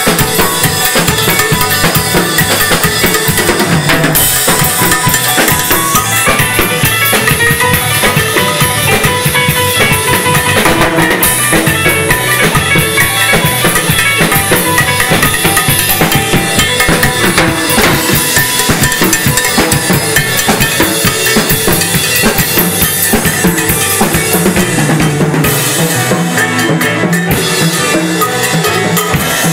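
A band playing Latin-style music, with a drum kit driving the beat under a Yamaha keyboard and an electric guitar.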